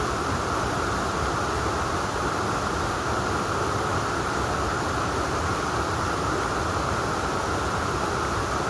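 Steady rushing noise of water from a mountain valley stream, constant and unbroken.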